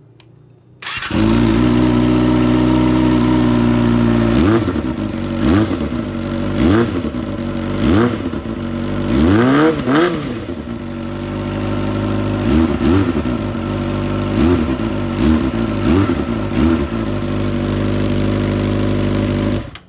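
Kawasaki ZX-25R's inline four-cylinder engine idling through a short RvR Short SE aftermarket exhaust with its DB killer fitted, blipped with about a dozen quick throttle revs. The DB killer does not close the outlet fully, so the exhaust still comes through fairly loud.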